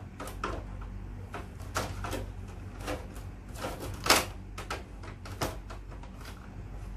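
Plastic-framed mesh air filter being slid and pressed back into a split-type air conditioner's indoor unit: a run of light plastic clicks and scrapes, the loudest a sharp knock about four seconds in.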